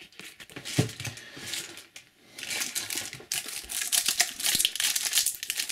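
Stiff trading cards being handled and set down, a scatter of light clicks and flicks, then from about two and a half seconds in a plastic-foil booster pack crinkling and crackling as it is picked up and opened.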